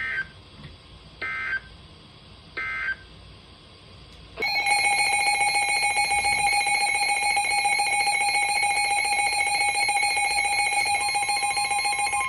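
Three short data bursts of an Emergency Alert System end-of-message code, about a second apart. Then, about four seconds in, a loud, steady EAS attention tone starts and holds, signalling the start of the next alert.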